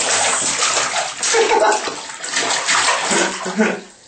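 A baby's hands slapping bathwater in a plastic infant bath seat: a rapid run of splashes, easing off shortly before the end.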